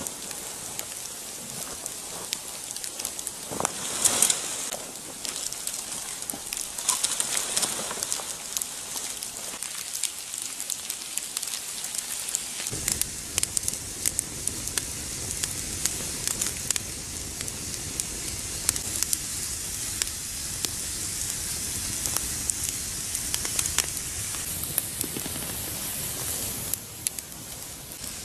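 Wood campfire crackling and hissing, full of small sharp snaps, with a few louder rustles and snaps in the first seconds. About thirteen seconds in the sound turns fuller and steadier.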